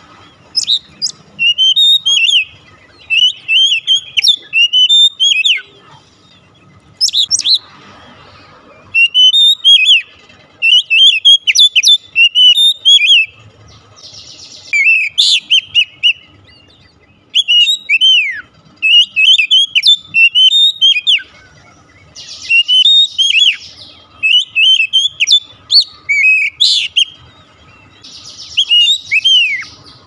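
Oriental magpie-robin singing loud, varied whistled phrases of rising and falling notes in bursts with short pauses. A few harsh, scratchy notes come in among them.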